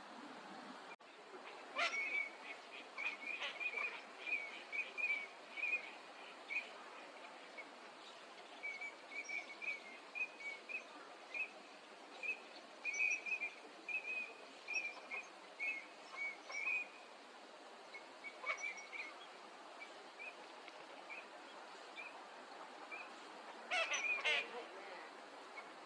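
Eurasian teal giving their short, high whistled calls, many in quick succession. The calls thin out in the middle and come back as a louder cluster near the end.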